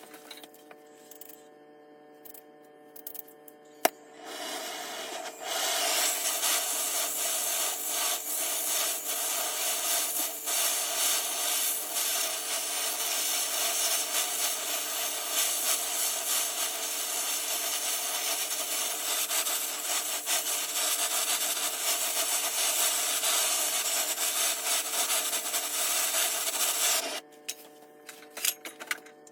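Oxy-fuel torch flame hissing steadily on a piece of brass, heating it to soften it for machining. A sharp click comes about four seconds in, the hiss builds within a second after it, and it cuts off abruptly near the end.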